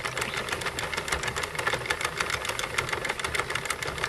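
Sentro 48-pin plastic circular knitting machine cranked by hand, its needles clicking through the carriage in a fast, steady run as it knits round.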